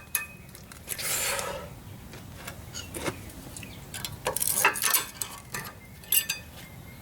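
Scattered light metallic clicks and scrapes of a screwdriver working at a brake pad retaining clip in the caliper bracket, with a longer rasping scrape about a second in.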